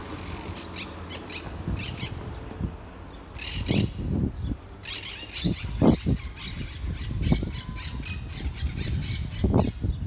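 Wild monk parakeets calling: runs of short, high squawks in quick succession, coming in several clusters.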